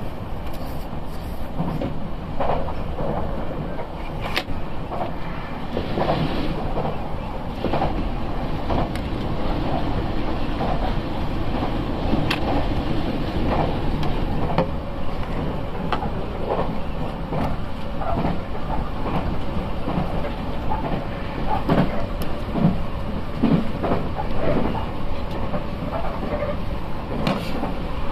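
Nankai electric train running, heard from on board: a steady rumble of wheels on rail, broken by scattered knocks and clicks from rail joints and points.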